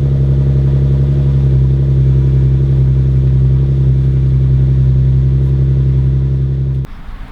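Nissan 370Z's 3.7-litre V6 idling steadily, then cutting off abruptly near the end.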